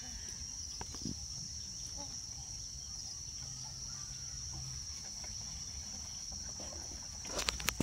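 Steady high-pitched chirring of insects, with a low rumble underneath and a few sharp knocks near the end.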